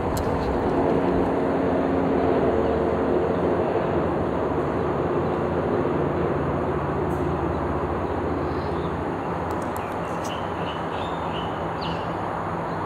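Steady rumble of vehicle traffic, swelling about two seconds in and slowly fading. A few short bird chirps near the end.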